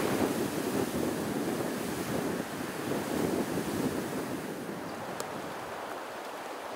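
Wind blowing over the microphone: a rushing noise that swells and eases in gusts.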